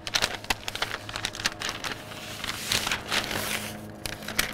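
Pink butcher paper crinkling and rustling in quick irregular crackles as it is folded around a smoked brisket, wrapping it partway through the smoke.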